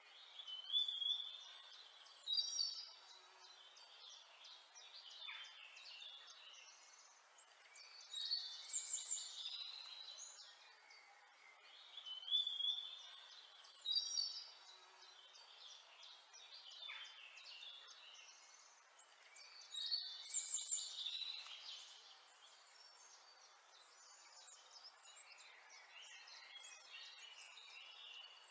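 Birds chirping and singing in short bursts of calls over a faint steady hiss; the same sequence of calls comes round again about every twelve seconds.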